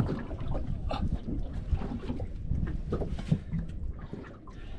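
Wind and water noise around a small open fishing boat: a steady low rumble with a few faint knocks.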